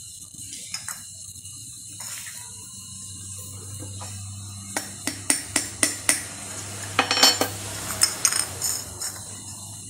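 A needle and aluminium drink cans tapping and clinking as holes are punched in the can for a homemade alcohol stove: a run of sharp light metallic taps in the second half, with a quick clatter in the middle of it.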